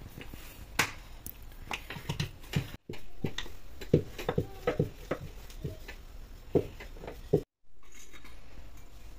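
Wooden rolling pin rolling paratha dough out thin on a countertop, with irregular knocks and clicks as the pin and hands work the dough. The sound cuts out briefly twice.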